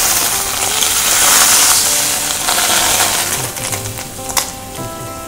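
Butter sizzling as it melts in a hot stainless steel frying pan. The sizzle swells, then eases off about four seconds in, with a sharp click soon after.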